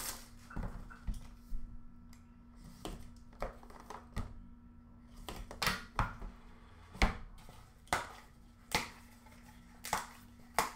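Scattered clicks and taps, about a dozen, as a cardboard trading-card box and its contents are handled and set down on a glass counter, over a faint steady hum.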